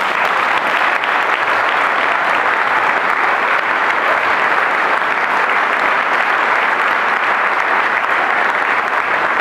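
Audience applauding steadily after a children's choir finishes its song.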